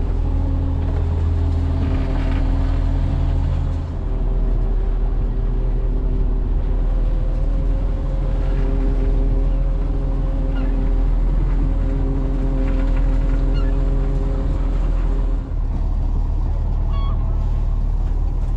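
A fishing boat's inboard engine running steadily. The low part of its hum eases about four seconds in and comes back up near the end.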